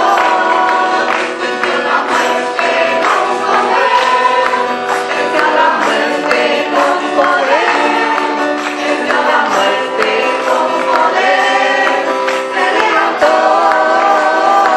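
Church choir singing a praise song with guitar accompaniment.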